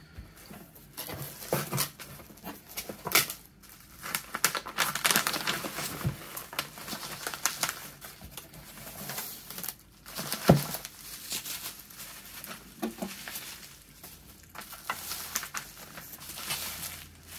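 A cardboard shipping box being opened and its bubble-wrap packing handled by hand. Irregular crinkling and rustling with scattered sharp clicks, and a louder knock about ten seconds in.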